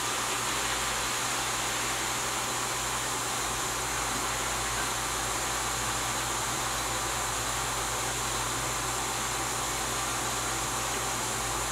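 A steady low hum with a constant hiss over it, unchanging throughout.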